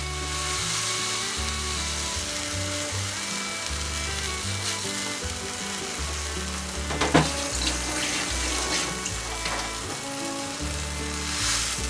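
Water poured into a pan of hot oil and soy sauce, the liquid hissing and sizzling around a whole chicken, with a sharp clink about seven seconds in. Background music plays underneath.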